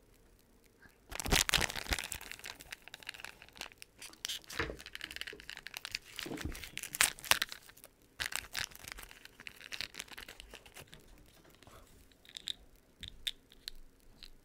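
Small plastic packaging being crinkled and torn open by hand, in irregular crackling bursts. It is loudest about a second in and again midway, then thins to a few ticks near the end.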